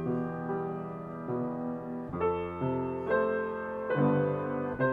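Piano duet: two players playing a slow, simple beginner piece, chords and melody notes struck about twice a second and left to ring.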